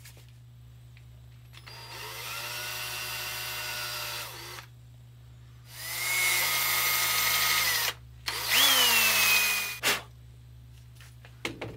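Handheld power drill drilling a pilot hole for a screw, in three runs of a few seconds each with short pauses between. The motor holds a steady whine during each run, and the last run is the loudest.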